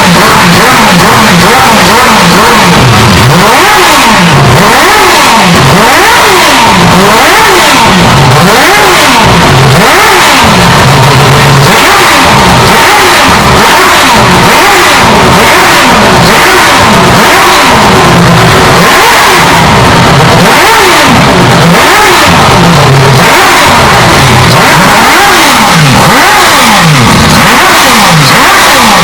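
Mazda 757 three-rotor rotary race engine revving hard, its pitch repeatedly climbing and dropping. The audio is boosted to near full scale and heavily distorted.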